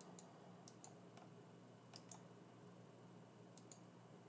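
Faint computer mouse clicks, heard about four times as a quick press-and-release pair, over a low steady hum of room tone.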